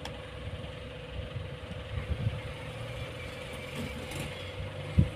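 A steady mechanical hum with a low rumble and a constant mid-pitched tone, broken by a single sharp knock about five seconds in.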